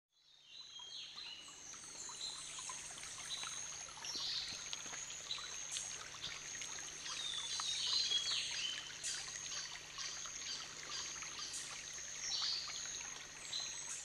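Rainforest stream ambience: water trickling and pouring over a stony stream bed, with birds calling in short chirps and a steady high-pitched drone behind. The sound fades in at the very start.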